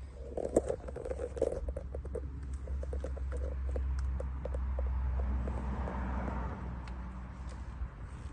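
Wind rumbling on the microphone with scattered light clicks and taps of handling. There are a few louder knocks about half a second to a second and a half in, and a soft whoosh swells and fades in the middle.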